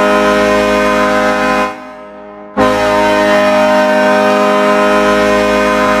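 Pittsburgh Penguins arena goal horn blasting a loud, steady, deep chord. It cuts out for under a second about two seconds in, then sounds again.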